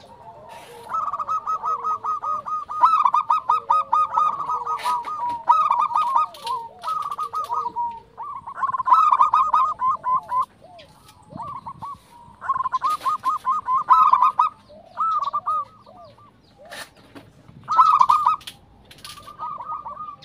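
Zebra dove (perkutut) singing: quick runs of short, high cooing notes, repeated in several phrases with brief pauses between.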